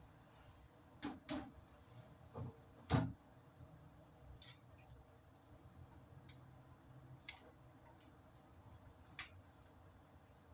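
Scattered short clicks and knocks, about seven over the stretch, the loudest about three seconds in, over a faint low hum.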